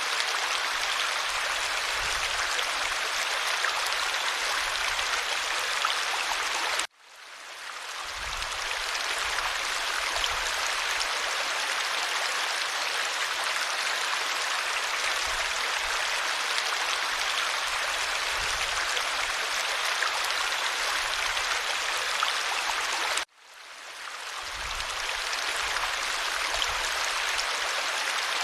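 Clear stream water rushing steadily. Twice the sound cuts out abruptly and fades back in over a second or two, at the joins of a repeated recording.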